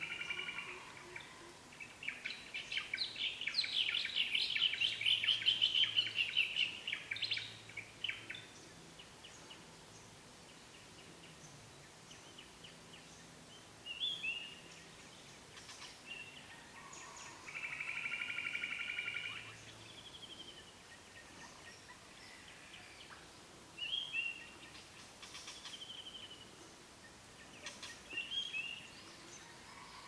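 Dawn chorus of several birds singing. A long, fast chattering song runs from about two to eight seconds in, a short trilled phrase comes at the start and again just past halfway, and brief whistled notes are scattered through the rest.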